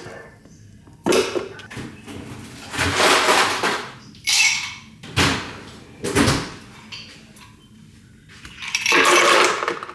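Dishes and kitchenware being handled: about six separate clatters and scrapes, the longest and loudest near the end.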